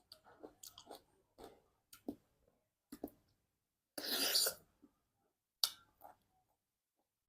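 Close-miked chewing and biting of fruit: a string of short, soft mouth noises, with one louder, longer noisy burst about four seconds in.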